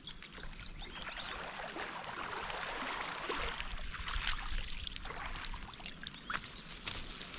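Water splashing as an open-top lift net is hauled in by its rope through a shallow dam, then water streaming and dripping from the mesh as the loaded net is lifted clear about halfway through.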